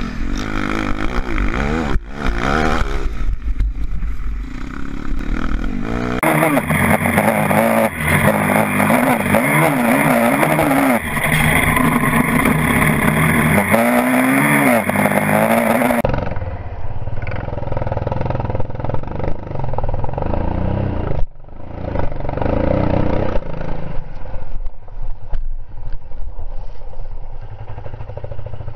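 Dirt bike engine revving up and down through the gears while riding, heard up close from the bike. The sound changes abruptly twice, about 6 and 16 seconds in.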